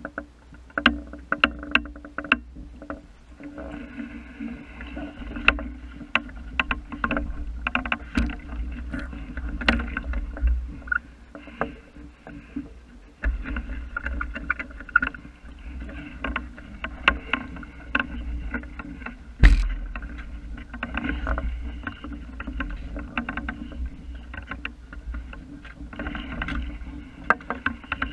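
Water splashing and gurgling along the hull of a small wooden sailing boat under way, with frequent sharp knocks and clicks from the boat and its gear, the loudest about two-thirds of the way through, over a steady low rumble.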